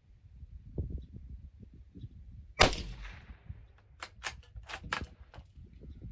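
A single shot from a Marlin 983S bolt-action .22 WMR rifle firing 33-grain Remington AccuTip, about two and a half seconds in, with a short ringing tail. About a second and a half later comes a quick run of about five sharp metallic clicks as the bolt is worked.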